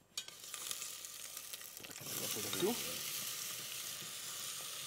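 Food being browned in a hot frying pan: a sizzle that starts suddenly as the food goes in and gets louder about two seconds in.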